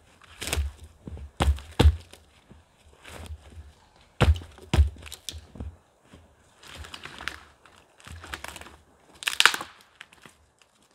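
Irregular knocks, cracks and crunches of firewood being handled and broken, the heaviest thumps about half a second, two seconds and four to five seconds in, with a longer rustling scrape near the end.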